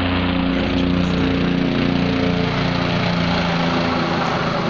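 Engine of a low-flying aircraft droning steadily overhead, its pitch wavering slightly.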